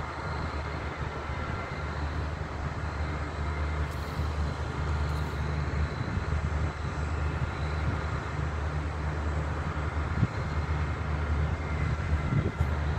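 SNCF X 72500 diesel railcar's engines running steadily at low revs, a low drone, as the train creeps in and stands.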